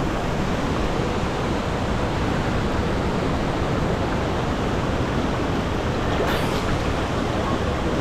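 Steady roar of a tall waterfall and the river water rushing around boulders in its pool, with a brief splash about six seconds in.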